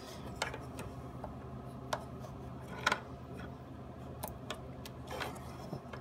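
Weather Pack connector terminal pins pushed into the plastic housing, giving about half a dozen little clicks as they seat all the way. A steady low hum runs underneath.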